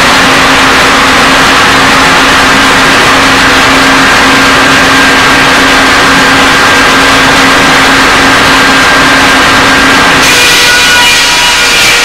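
Sawmill machinery running, a loud steady mechanical drone with a constant hum and whine. About ten seconds in, the sound changes abruptly and new higher whining tones come in.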